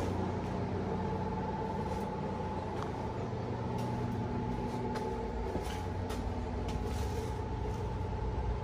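Steady machine hum with a thin whine running under it, broken by a few faint clicks and taps.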